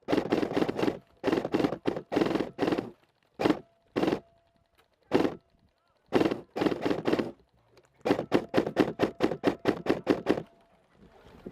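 Airsoft rifle firing repeated short bursts of rapid shots, several a second, with abrupt silences between the bursts.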